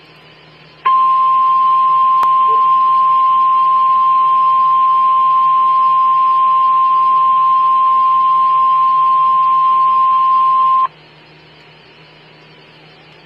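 NOAA Weather Radio warning alarm tone: one steady, loud 1050 Hz tone that starts about a second in and cuts off sharply after about ten seconds, over faint radio hiss. It signals that a warning message follows, here a severe thunderstorm warning.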